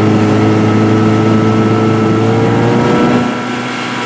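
Jon boat's gasoline outboard motor running under throttle, its pitch climbing slightly, then eased back a little after about three seconds.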